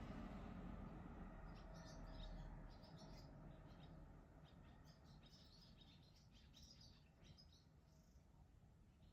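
Barn swallows twittering faintly in many short, high chirps that start about a second and a half in, over a low rumble that fades after the first few seconds.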